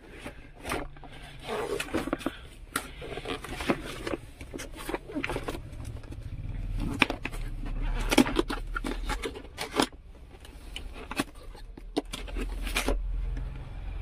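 Cardboard box being handled and shifted on a car seat: repeated scrapes, taps and knocks of the cardboard, with a low rumble underneath at times.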